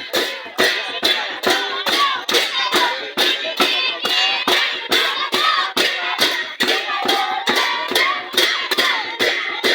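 Dance music with singing over a steady, quick beat of sharp strikes, about three a second.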